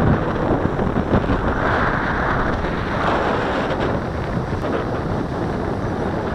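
Strong onshore sea breeze buffeting the microphone: a loud, steady rush of wind noise.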